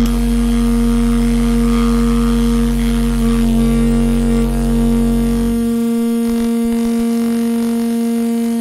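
Experimental improvised music for saxophone, trombone, electronics and Strombophone: layered, steady drone tones with no clear beat. A deep low hum underneath drops out a little past halfway, and the higher held tones carry on.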